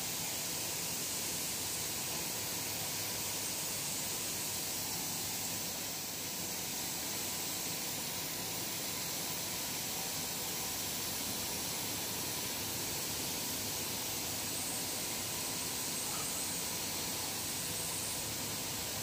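Steady hissing machinery noise of an industrial biscuit production line, with faint hum under it.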